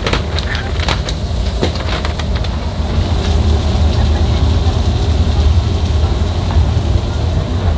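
Commercial kitchen noise: a steady low hum with a hiss over it, and several sharp clicks and knocks of food and packaging being handled in the first couple of seconds.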